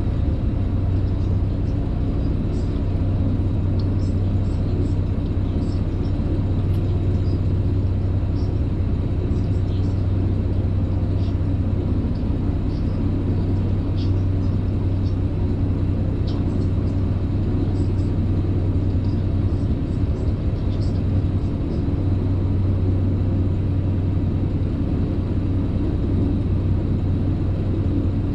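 Tour boat's motor running steadily, a low even drone with faint short high ticks scattered over it.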